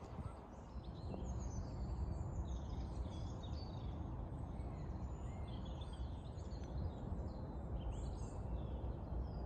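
Small birds chirping and singing in many short, quick calls, over a steady low rumble.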